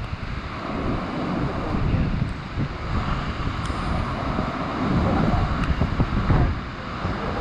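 High surf breaking and washing over rocks below a sea cliff, with gusty wind buffeting the microphone.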